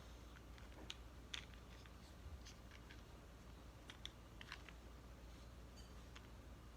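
Near silence with scattered faint light clicks and taps, about six over several seconds, from small plastic toy cars being handled.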